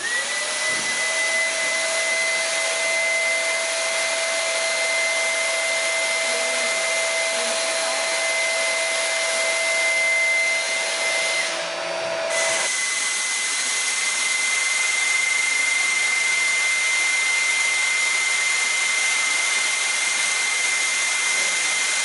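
Dyson vacuum cleaners, a V10 cordless stick and a full-size corded model, switched on together and running at full suction in a water-column lift test: a steady rushing noise with a high whine and a lower tone that settles within the first second. About halfway through the lower tone stops and the high whine breaks off briefly, then one high whine runs on steadily.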